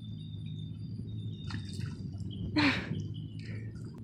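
Dogs' paws splashing through shallow creek water, a few small splashes and then one louder splash a little past halfway, over a steady low hum.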